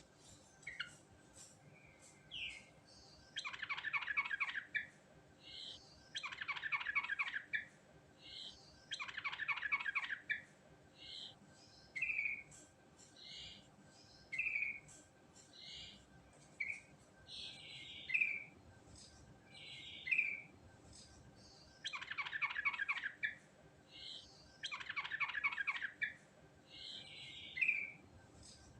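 Yellow-vented bulbul (trucukan) singing: rapid rolling, trilled phrases about a second and a half long, given in runs a few seconds apart, with short clear whistled notes between them.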